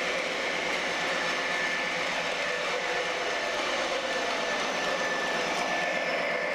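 MTH Premier O-scale model of a CSX AC4400CW diesel locomotive running on the track: a steady mix of the engine sound from its Proto-Sound 3.0 speaker and the model's own wheel and motor noise, with a faint high hum held throughout.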